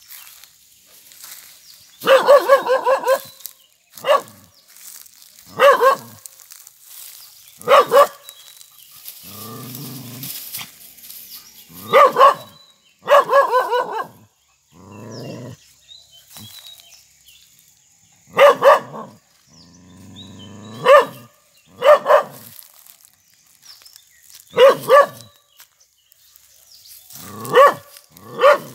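Dog barking at an iguana, in single barks and short runs of three or four in quick succession, repeated every few seconds, with a couple of lower, longer sounds between the barks.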